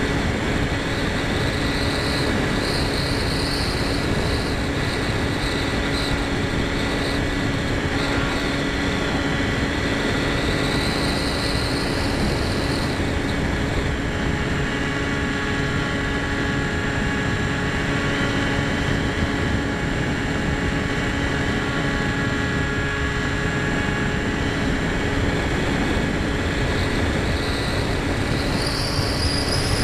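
Onboard sound of an EPP foam FPV model plane in flight: its motor and propeller whine steadily over heavy wind rush on the airframe-mounted microphone. The whine fades somewhat in the middle and rises in pitch near the end.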